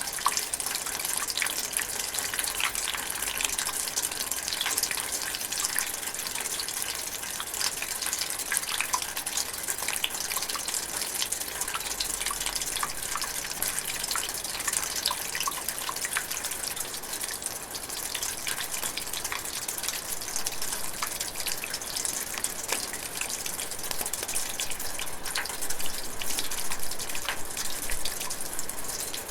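Rainwater dripping and trickling inside a metal gutter: a dense, irregular patter of small drops over a steady wash of running water.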